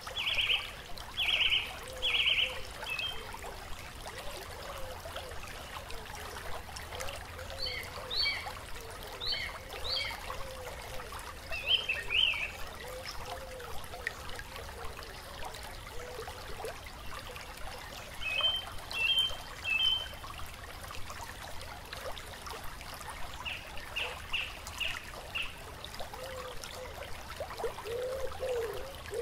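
Nature soundscape: a stream trickling steadily, with birds giving short rapid series of chirps every few seconds and a low wavering call underneath that grows stronger near the end.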